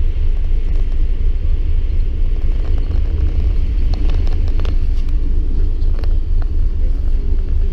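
Steady low rumble of a car ferry under way, heard from its open upper deck with wind buffeting the microphone, and a few sharp clicks about four to five seconds in.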